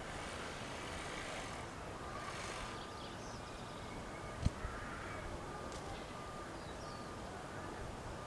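Outdoor ambience of steady background noise with a few short, faint bird chirps, and one sharp click about four and a half seconds in.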